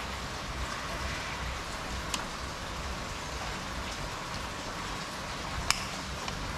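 Steady rain falling, with two sharp clicks, one about two seconds in and a louder one near the end.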